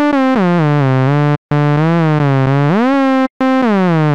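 Serum software synthesizer playing three sustained buzzy notes with portamento, separated by short breaks. Each note's pitch slides smoothly down about an octave over roughly a second, and one glides back up near the end of the second note. The glide's shape is set by a raised portamento curve.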